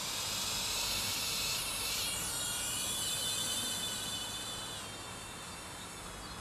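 High-pitched buzzing whine of a toy mini-quadcopter's four small electric motors in flight, the pitch shifting up and down as the rotors change speed. It grows somewhat fainter near the end.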